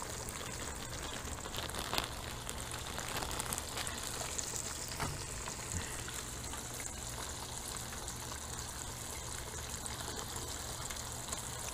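Bream fillets sizzling in hot oil in a frying pan, a fresh batch just added: a steady frying hiss with a couple of light clicks.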